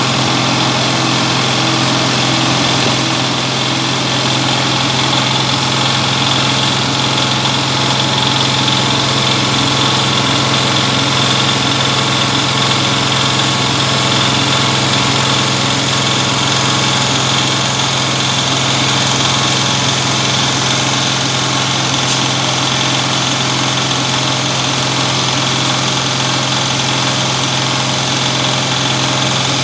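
Compost shredder's single-cylinder stationary diesel engine running at a steady speed, the shredder turning over empty with nothing fed in.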